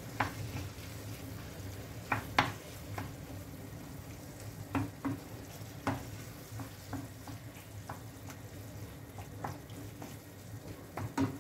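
Wooden spoon stirring a frying pan of tomatoes, peppers and aubergine cooking on low heat, with a gentle sizzle and irregular knocks and scrapes of the spoon against the pan over a steady low hum.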